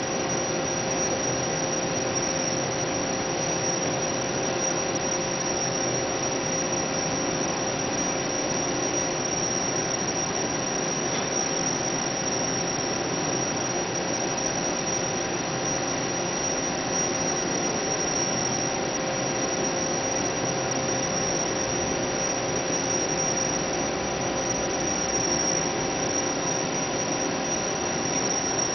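A steady machine drone: several constant hum tones over an even hiss.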